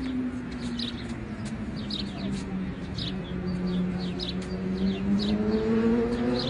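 Small birds chirping again and again over the steady hum of a motor vehicle's engine, which dips a little in pitch and then rises in the second half.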